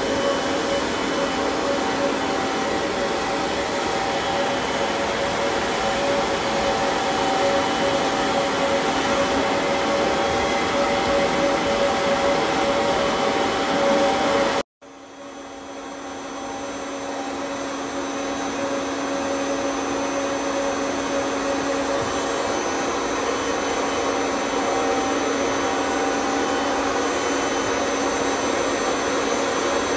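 Canister vacuum cleaner running steadily with a held whine as its upholstery nozzle is drawn over a fabric sofa. About halfway it drops out for a moment, then builds back up to full over a few seconds.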